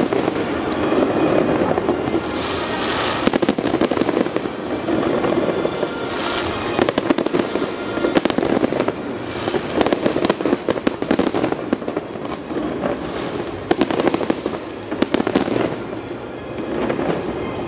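Fireworks display: many bangs and crackling pops from bursting aerial shells, coming thick and fast, over a steady background din.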